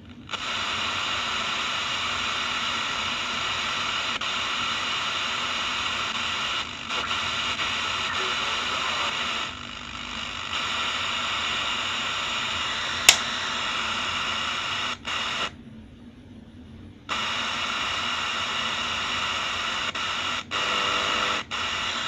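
Steady radio static hissing from the speaker of a Legenda P-305T radio-cassette recorder while its VHF band is tuned with no station coming in, which the owner puts down to the building being shielded. The hiss drops out briefly a few times, longest for about a second and a half past the middle, and there is one sharp click about 13 seconds in.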